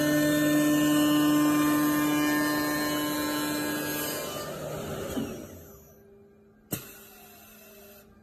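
CNC wood-turning lathe running with a steady whine, then winding down and fading out between about four and six seconds in. A single sharp click follows near the end over a faint hum.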